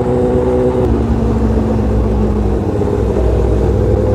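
Superbike engine running under way at road speed. Its note drops about a second in, then climbs again near the end as the throttle is opened, over wind rush on a camera mounted on the bike.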